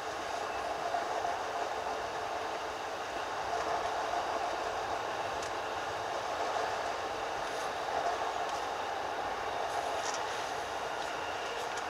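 JR East E233-3000 and E231-1000 series electric train running, heard from the front of the train: a steady rolling rumble of wheels on rail, with a few faint light clicks and a faint high tone near the end.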